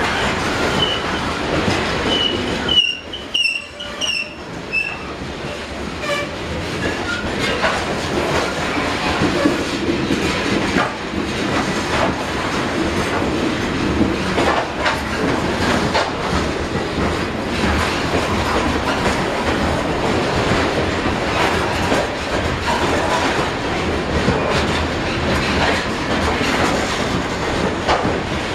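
Freight cars of a CSX coal train rolling past on the rails, the wheels clicking over rail joints. Short high-pitched wheel squeals come in the first several seconds.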